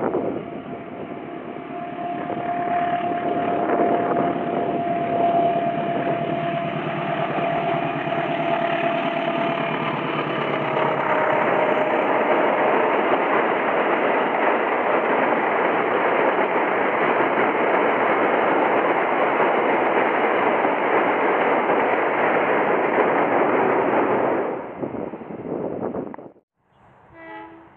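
Diesel-electric passenger train passing close by: locomotive engine noise and the steady rumble and clatter of the coaches' wheels on the rails. A long steady tone runs through the first half and drops slightly in pitch as the locomotive goes past. The train noise fades about three-quarters of the way through and then cuts off abruptly.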